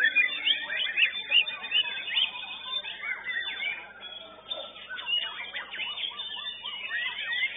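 White-rumped shamas singing, several at once: rapid, overlapping whistled phrases with quick rising and falling notes.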